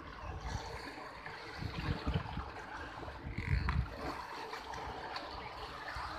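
Water trickling and sloshing at the surface, with a few low thuds about two and three and a half seconds in.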